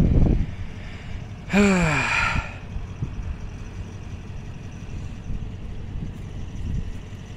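A person's short sigh, falling in pitch, about a second and a half in, over a low steady rumble.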